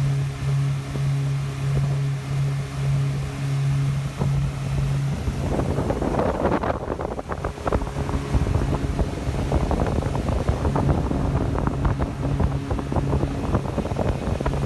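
Yamaha 242 jet boat's engine running with a steady hum that swells about twice a second. From about five seconds in, a rough rushing of wind and water joins it.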